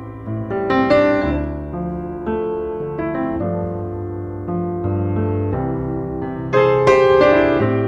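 Background piano music: slow, held notes and chords, with louder chords struck about a second in and again near the end.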